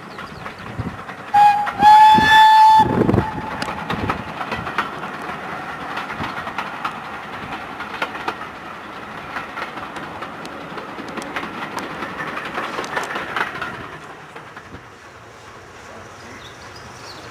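Steam locomotive whistle: a short toot, then a longer blast about a second and a half in. Around it are the locomotive's exhaust chuffs and the steady rumble and clicking of the passing train, which fades quieter near the end.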